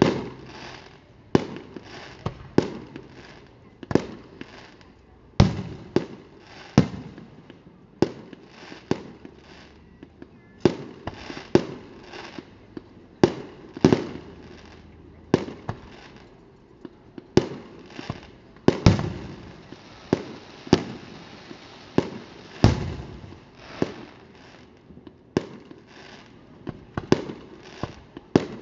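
Aerial fireworks shells bursting in a steady series of sharp bangs, about one a second, each trailing off in echo.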